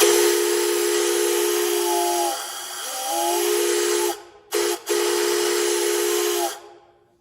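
3D-printed 4-inch six-chime steam-whistle replica blown on 120 psi compressed air: a chord of low notes over heavy air hiss. One long blast sags and bends in pitch near the middle, breaks off, gives two short toots, then sounds again and dies away near the end. Not all of its chime notes are resonating correctly.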